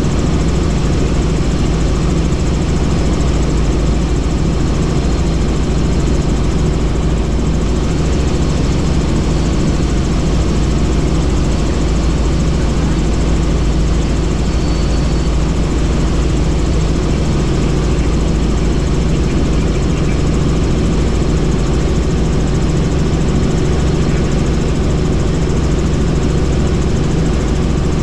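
Helicopter in flight: steady, unbroken rotor and engine noise.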